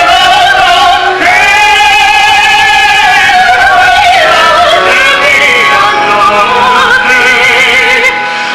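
Stage singing of an operatic-style aria in Italian with musical accompaniment: sung notes with a wide vibrato, including one long held note about a second in.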